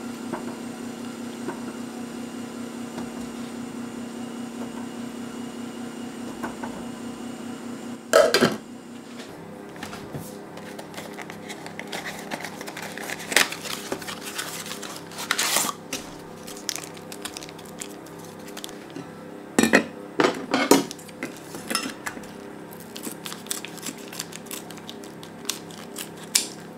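Handling noises of opening a cardboard tofu carton and snipping its plastic packet with kitchen scissors over a steel bowl: scattered clicks and knocks, a few of them sharp, and quick small snips near the end. Before that there is a steady low hum, broken by a loud clatter about eight seconds in.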